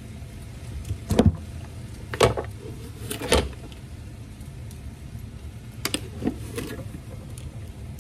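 A handful of short, sharp clicks and knocks from kitchen utensils and containers being handled while sugar and salt are measured into a wok, over a steady low hum.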